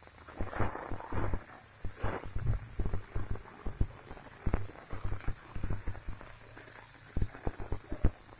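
Hot oil crackling and popping irregularly around surmai (kingfish) steaks shallow-frying in a flat pan, with a low hum underneath.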